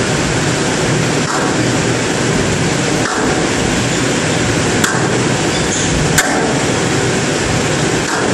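Squash ball struck during a rally: two sharp cracks of ball on racket and wall, about a second and a half apart, over a steady loud noise in the hall.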